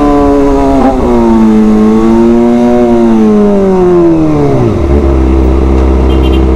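Kawasaki ZX-25R's inline-four engine through an SC Project titanium exhaust, held at high revs with a short dip about a second in. The revs then fall steeply and it settles into a low, steady idle near the end.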